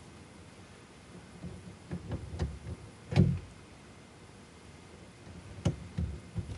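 Small plastic clicks and knocks of an add-a-circuit fuse tap being handled and pushed into a truck's under-dash fuse box, with one louder knock about three seconds in and a few sharp clicks near the end.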